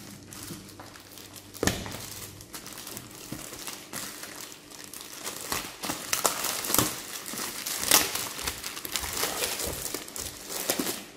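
Clear plastic shrink-wrap being torn open and peeled off a cardboard keyboard box, crinkling and crackling irregularly throughout.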